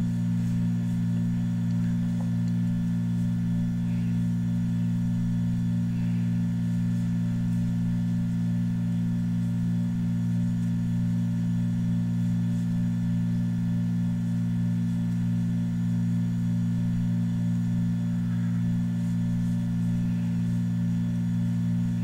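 Steady low hum of several held tones, unchanging in pitch and loudness.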